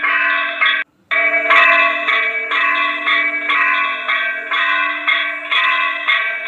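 Bells ringing in a steady rhythm, struck about twice a second and each stroke left to ring on, with a sudden brief break about a second in.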